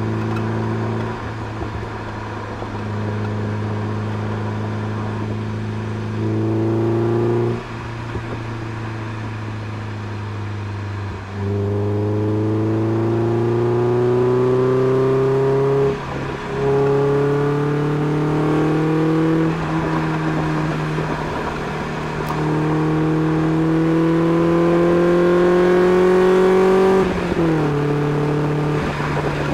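Modified Mazda MX-5 NB 1.6 four-cylinder engine heard through its aftermarket sports exhaust, recorded at the rear of the car. It runs steadily at first, then pulls hard with the engine note rising in pitch several times, each rise broken by a short dip at a gear change. The pitch drops near the end as the throttle eases.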